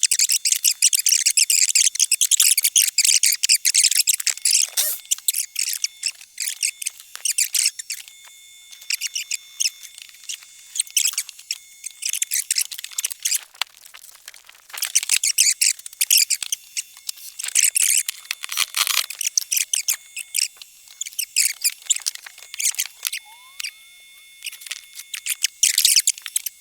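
Hand work on the shop's wooden wall boards and nails: long bursts of high-pitched scraping and squeaking, with many small clicks and quieter gaps between.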